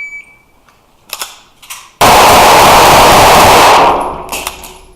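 A shot timer's start beep, then rapid pistol fire in an IPSC stage. About two seconds in the shots come so fast and loud that they merge into one continuous roar with the recording overloaded; this eases off briefly near the end.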